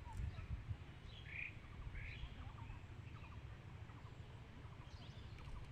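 Birds chirping faintly, with two clearer short calls about a second and a half and two seconds in, over a steady low rumble.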